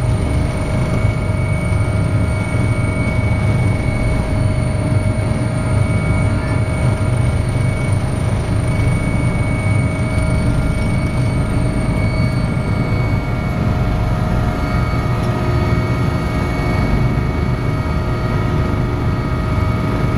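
Helicopter's turbine engines and rotor running steadily as it comes in to land, heard from inside the passenger cabin. A high whine fades out about two-thirds of the way through.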